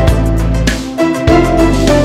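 Instrumental background music with held bass notes and a steady beat.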